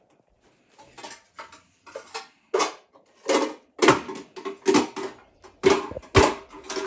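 Hard plastic objects clattering and knocking against each other and a tabletop as small toy capsules and a plastic box are handled: irregular knocks that grow louder and more frequent, with two hard hits about four and six seconds in.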